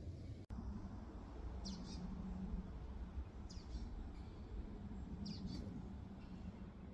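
A bird calling: three short high calls, each a quick pair of notes falling in pitch, spaced about two seconds apart, over a steady low rumble.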